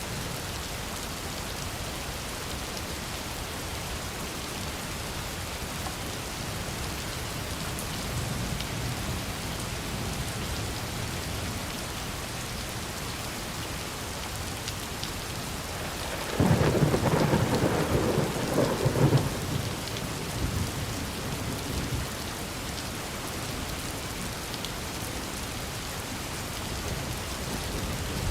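Steady rain falling. A little past halfway, a sudden loud clap of thunder breaks in, stays loud for about three seconds, then rumbles away under the rain.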